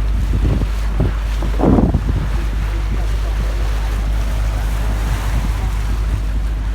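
Wind buffeting the microphone over the steady rumble of a lake cruise boat moving through the water, with a louder gust about two seconds in.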